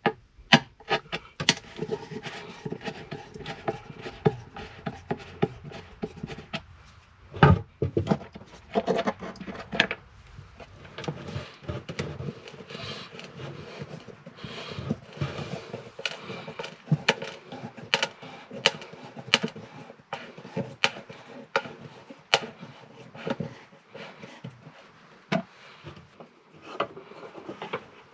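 Hand screwdriver working a screw at a plastic fitting on a wooden wall: irregular scraping, clicks and taps, with one louder knock about seven and a half seconds in, over a faint steady hum.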